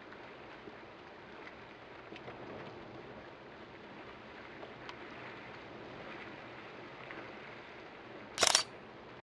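Steady outdoor background hiss with faint scattered ticks, then near the end a short rapid burst of camera shutter clicks, by far the loudest sound. The sound cuts off abruptly just after it.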